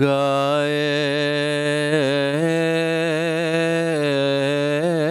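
A man's voice chanting a soz, an unaccompanied Urdu Muharram lament, drawing out one long held note on the word "lagaye". The pitch dips briefly about two seconds in and again near the end.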